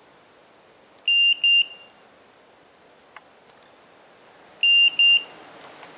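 Hunting dog's electronic beeper collar sounding pairs of short, high beeps, two pairs about three and a half seconds apart: the repeating signal that the dog has stopped and is standing on point on a woodcock.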